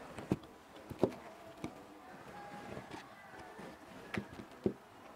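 A few sharp wooden knocks and rope-handling noise as cord is wrapped and pulled tight around two crossed wooden sticks, putting on the middle (frapping) turns of a square lashing.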